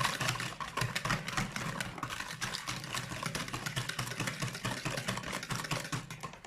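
Cake batter of eggs, sugar, oil and yogurt being beaten in a bowl: a steady, rapid clatter of the beater against the bowl over a low hum.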